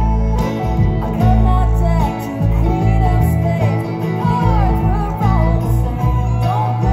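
Live bluegrass band playing, with fiddle, banjo, acoustic guitar and upright bass; the upright bass is heavy in the low end.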